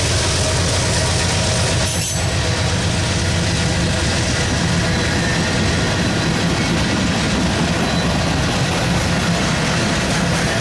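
Union Pacific freight train passing close by at speed: a mid-train diesel locomotive goes by at the start, then empty ribbon rail flatcars roll past with loud, steady wheel-on-rail noise.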